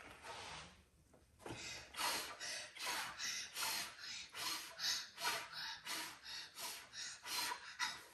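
Someone breathing fast and hard in short, noisy puffs, about two a second.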